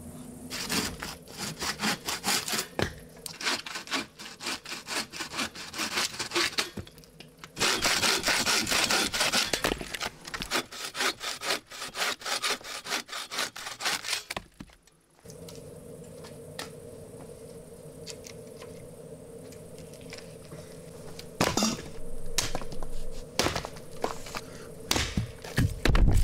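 A hand saw cutting through a green branch in rapid back-and-forth strokes, with a short break partway. The sawing then stops suddenly, and a few sharp knocks of wood follow near the end.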